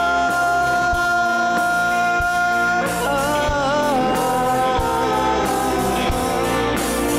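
Pop ballad sung in Filipino with a band and a steady drum beat. A long sung note is held, and about three seconds in a new wavering melody line with vibrato takes over.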